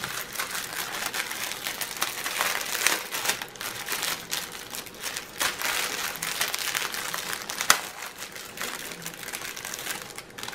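Thin plastic bags crinkling and rustling as hands handle a clear zip-lock bag and the small bags of diamond-painting drills inside it. There is a sharp tick about three-quarters of the way through.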